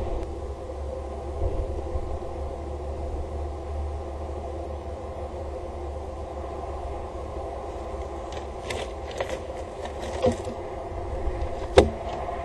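Steady low rumble at a rooftop microphone, with scattered clicks in the last few seconds and a sharp knock near the end as a peregrine falcon lands on the nest box's grated ledge.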